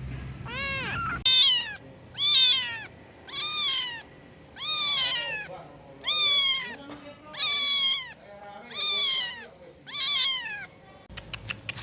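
A kitten meowing repeatedly, calling for its mother: about ten high, arching meows, roughly one a second, the later ones louder and higher.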